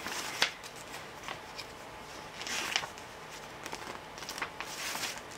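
Light handling noises: scattered small clicks and a few brief soft rustles as a cosmetics package is turned over in the hands.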